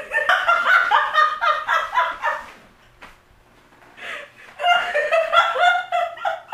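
A young woman laughing hard in two long fits, with a lull of about a second and a half in the middle.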